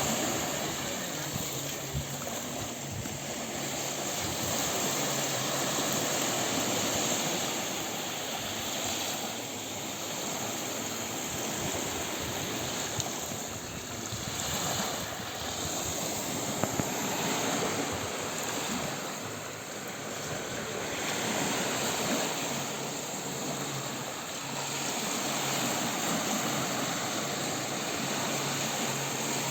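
Gentle sea waves washing onto a beach: a steady rush of surf that swells and eases every several seconds.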